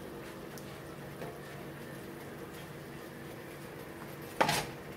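Sliced peaches in balsamic vinegar and broth simmering faintly in a cast iron skillet. A spatula knocks sharply against the skillet about four and a half seconds in, the loudest sound.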